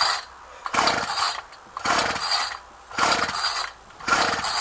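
Recoil pull-starter of a Ryobi two-stroke string trimmer being yanked over and over, about one pull a second, and the engine does not catch. The owner later found the trimmer needed its carburettor adjusted before it would run.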